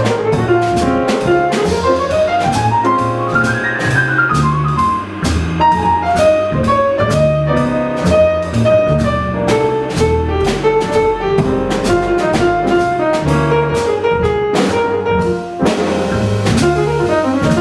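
Live small-group jazz: a saxophone solos in fast runs that climb and fall, over piano, walking upright bass and a drum kit with steady cymbal strokes.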